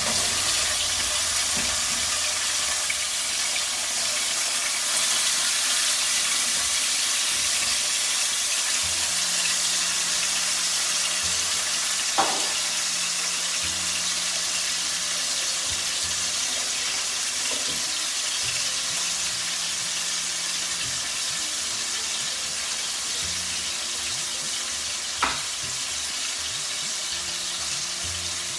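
Marinated chicken pieces frying with spring onions in hot oil in a non-stick pan: a steady sizzle, a little stronger in the first several seconds and then easing. Two short sharp ticks come about twelve and twenty-five seconds in.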